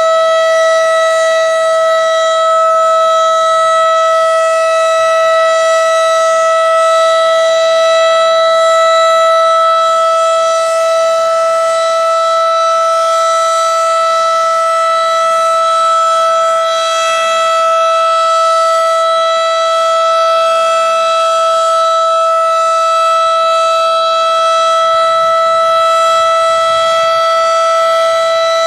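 W.S. Darley Model 5 outdoor warning siren sounding during a test, holding one steady, unwavering tone at full pitch with a stack of overtones.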